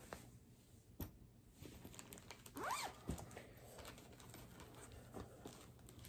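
Faint rustling and crinkling of plastic project bags and fabric being handled, with a light click about a second in and a short squeak-like glide about three seconds in.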